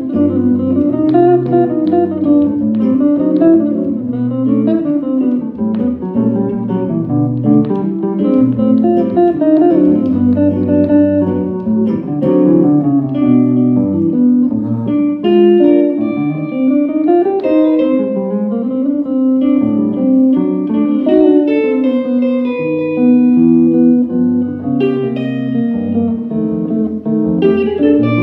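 Two electric jazz guitars playing a ballad as a duo, picked notes and chords with a low bass line under a single-note melody.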